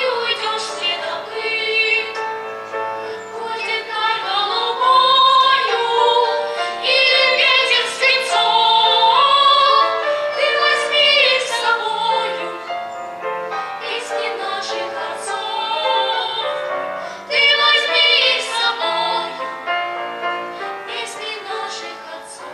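Children's vocal ensemble singing a song together with piano accompaniment.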